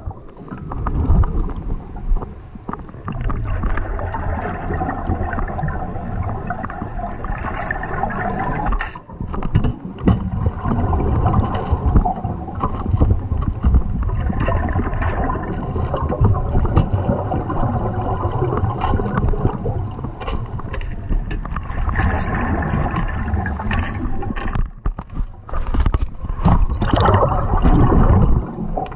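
Underwater bubbling and rumble from a diver's regulator breathing, heard through the camera housing, with two brief lulls about nine seconds in and near 25 seconds.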